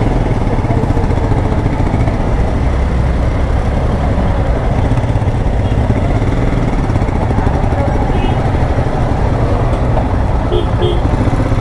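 Motorcycle engines running at idle and low revs in slow stop-and-go traffic, a steady low rumble.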